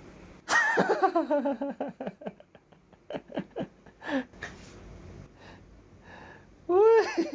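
A man laughing: a long falling 'ahh' followed by a run of short, breathy chuckles, with a brief rising-and-falling laugh near the end.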